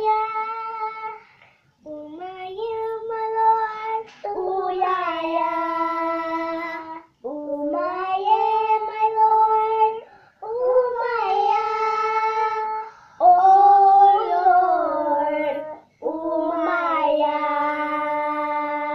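Young girls singing a song together without accompaniment, in long held phrases with short breaks for breath between them.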